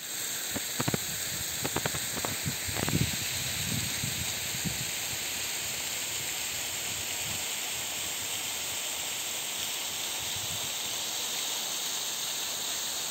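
Steady rushing hiss of a partly frozen waterfall, with a few short knocks and low thuds in the first few seconds.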